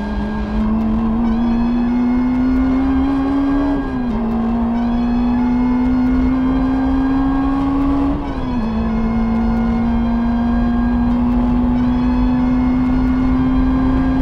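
Honda Integra DC5's four-cylinder engine heard from inside the race car's cabin, accelerating with its pitch climbing steadily, with two quick upshifts about four and eight seconds in.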